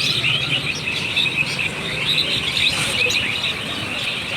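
Many birds chirping in a continuous chatter of short, high calls over a low steady hum.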